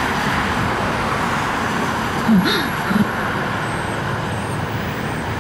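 Steady road traffic passing on a multi-lane road, with a brief voice about two and a half seconds in.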